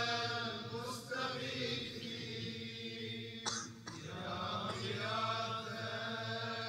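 Faint, drawn-out voices, far quieter than the recitation, with a short sharp sound about three and a half seconds in.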